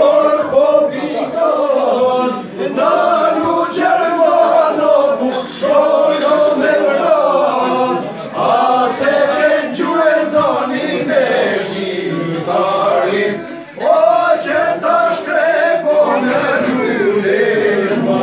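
A group of men singing together, with long held notes broken by short pauses for breath.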